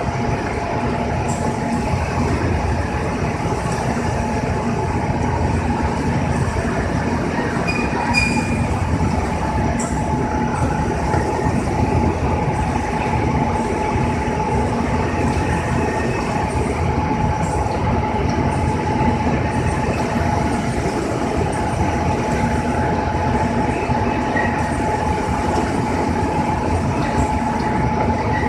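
Krupuk cracker-drying machine running: a steady mechanical drone and rattle with a constant whine, and now and then a faint squeak.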